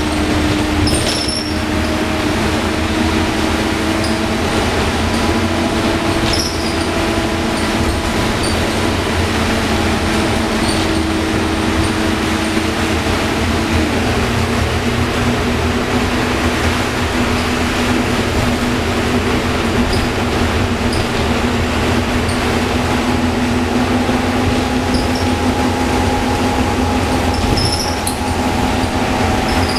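Interior sound of a moving Optare Solo M950 bus: its Euro 4 Cummins ISBe diesel engine and Allison 2100 automatic gearbox running steadily under a constant hiss of tyres on a wet road. The engine note drops in pitch about halfway through.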